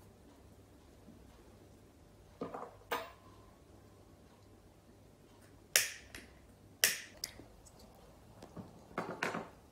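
Cigarette lighter clicked twice, two sharp clicks about a second apart, as a cigarette is lit. Near the end comes a breathy drag and exhale on the cigarette.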